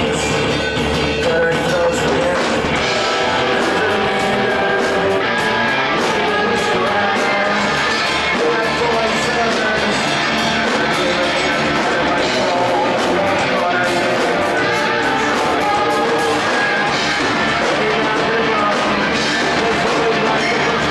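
Rock band playing a song live: electric guitars and drums with a singer, steady and loud with no break.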